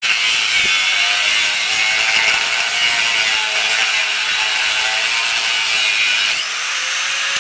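Handheld electric angle grinder cutting into the steel shell of a large Copeland hermetic compressor: a loud, steady grinding whine of the disc in the metal, which changes in tone about six and a half seconds in.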